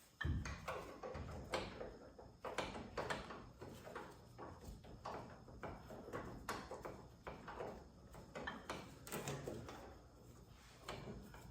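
Irregular knocks, clicks and scrapes of a car door being worked into position on a floor jack and a door hanger, with a low thump just after the start.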